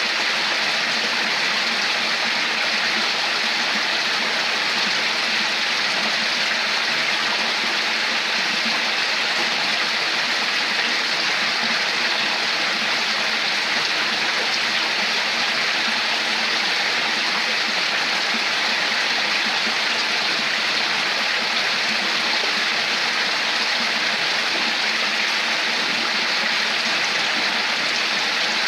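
Flowing water running over a stream bed, a steady, unbroken gurgling rush.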